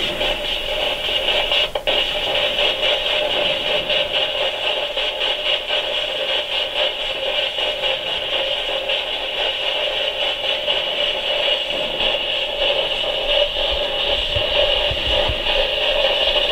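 Spirit box (sweeping radio scanner) giving a steady hiss of static, finely chopped as it skips rapidly through stations, with a brief dropout about two seconds in.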